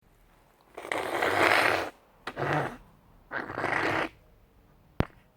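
Three noisy bursts of breath forced through a congested, cold-blocked nose, the first and longest the loudest, followed by a single sharp click about five seconds in.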